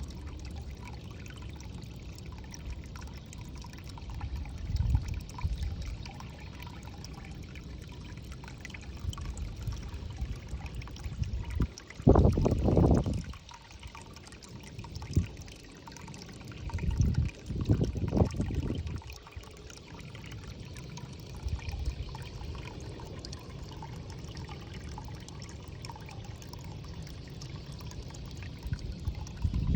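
Water trickling and pouring steadily into a water-lily pond. Several loud low rumbles cut through it, the biggest near the middle.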